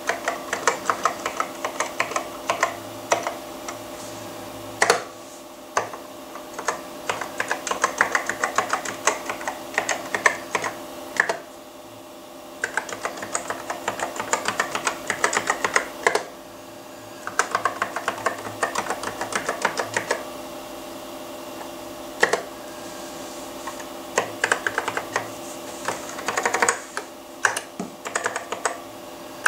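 Typing on a Macintosh Plus keyboard (model M0110A, with numeric keypad): quick runs of clicking keystrokes broken by short pauses, with a few louder single key strikes. A steady low hum runs underneath.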